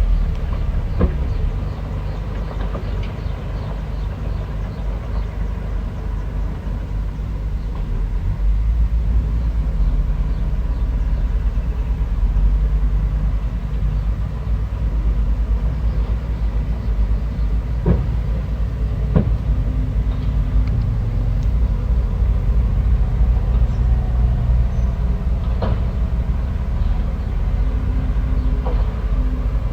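Bulldozer's diesel engine running steadily with a heavy low rumble, with a few sharp metallic knocks.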